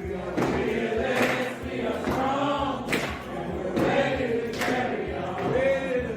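A group of voices singing a chant-like song, with a few sharp percussive hits among the singing.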